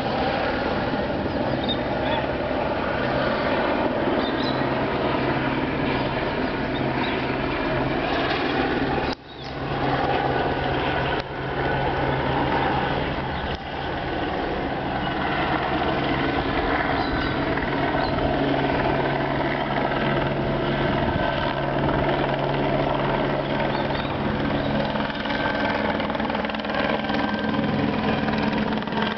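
Firefighting helicopter circling overhead, its rotor and engine running steadily with a constant low hum. The sound drops out sharply for a moment about nine seconds in.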